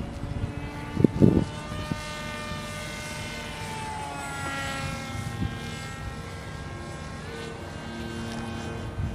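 Homemade radio-controlled F-22 Raptor model's motor whining as it flies past, its pitch rising and then dropping in the middle as it goes by. Brief low thumps about a second in.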